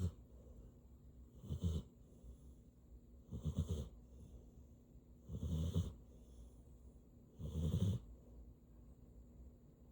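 A mixed-breed dog snoring in its sleep, one snore about every two seconds.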